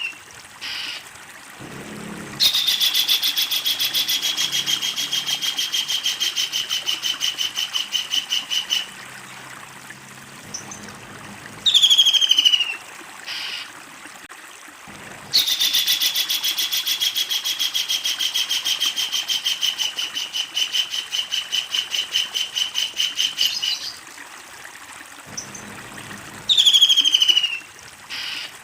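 Kingfisher calling: two long, rapid cackling trills, each several seconds long, starting a little higher and settling to a steady pitch. Between them come short, sharp calls that fall in pitch.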